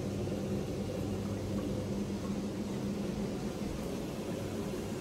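A steady low mechanical hum under an even rushing noise. The hum weakens a little about two seconds in.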